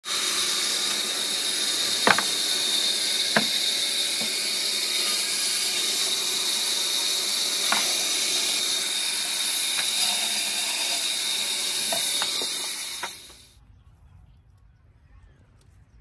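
Electric band saw (JAI J550E) cutting through a log section: a loud steady hiss with a high whine, broken by a few sharp ticks. The sound cuts off suddenly about thirteen seconds in.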